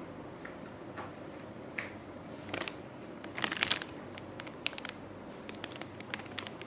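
Scattered light clicks and rustles of hands handling hardware or packaging, with a quick cluster of them about three and a half seconds in, over steady room noise.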